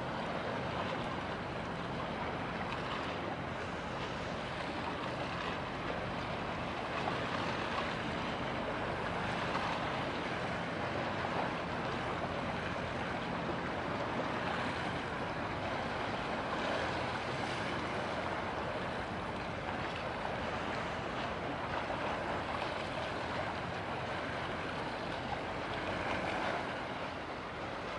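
Steady rush of water and wind as a container ship passes through the strait, with a faint low steady hum underneath.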